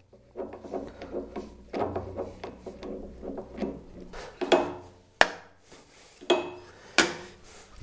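A steel wrench and spindle parts clinking and knocking on the cast-iron table of a Pannhans spindle moulder as the locked spindle's nut is loosened, with scattered clanks. The sharpest is about five seconds in, another comes near the end.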